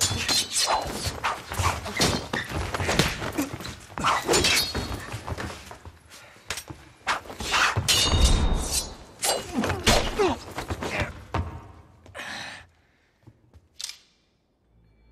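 Sword-fight sound effects: quick clashes of steel blades, some ringing briefly, mixed with thuds and things smashing and breaking, dense for about twelve seconds. The fight sounds then stop suddenly, leaving a short burst and one sharp hit near the end.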